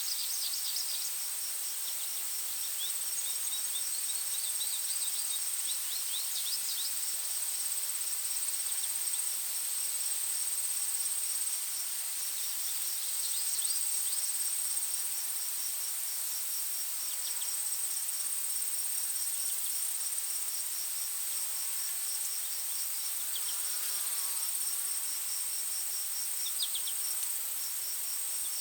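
Insects trilling in a continuous high-pitched drone, with a second insect pulsing in a fast, even rhythm, and birds giving short chirps now and then.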